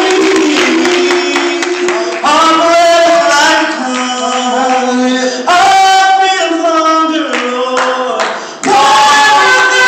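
Male vocal group singing in harmony through microphones, holding long notes, with a new phrase coming in about every three seconds.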